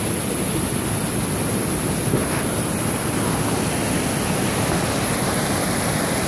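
A large waterfall rushing steadily: an even, unbroken noise of falling water.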